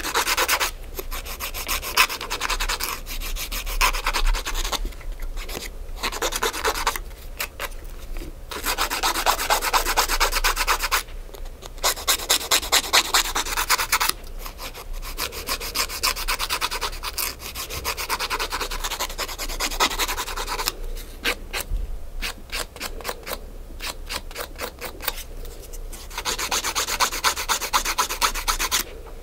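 Nail file rasping across fingernails in quick back-and-forth strokes, in runs of a few seconds with brief pauses.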